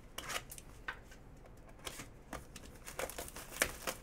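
A sealed Upper Deck Artifacts hockey hobby box being handled and its plastic shrink-wrap pulled off: light scattered rustles and clicks, turning to denser crinkling and tearing of the wrap in the last second.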